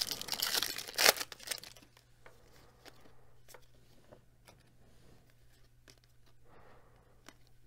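Baseball card pack wrapper tearing and crinkling as it is ripped open, with a sharp rip about a second in. Then come faint clicks and rustles of the cards being handled.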